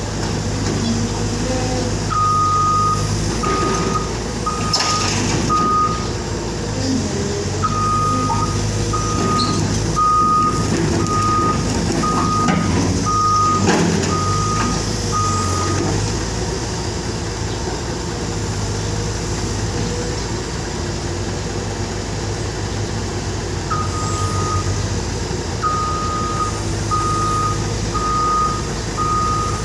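Wheeled backhoe loader's diesel engine running under a repeating reversing alarm: steady single-pitch beeps, a bit more than one a second, that come in three runs as the machine backs up and stop between them. A few short knocks are heard in the middle.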